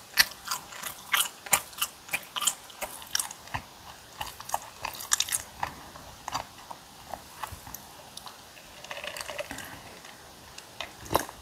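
Close-miked chewing of bossam boiled pork and kimchi: wet crunches and mouth clicks, about two or three a second, thinning out after about six seconds.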